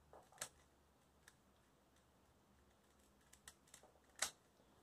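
Plastic shape-mod puzzle cube turned by hand: a few faint, scattered clicks as its layers are twisted, the sharpest about half a second in and near the end.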